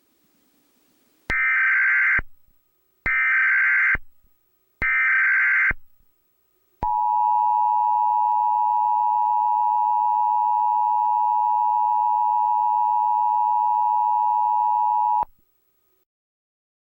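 Emergency Alert System tones: three short bursts of SAME header data about a second and a half apart, then the long two-tone attention signal held steady for about eight seconds before cutting off sharply. The sequence announces an emergency alert broadcast.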